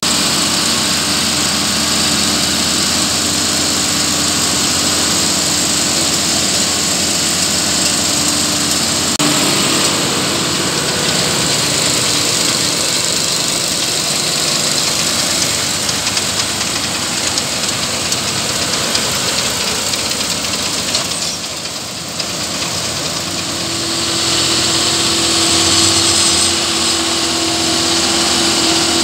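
Claas Arion 640 tractor running while it drives a Claas Rollant 454 round baler pressing chopped maize: a loud, steady engine and machinery noise. A steady hum within it fades about nine seconds in and comes back a few seconds before the end.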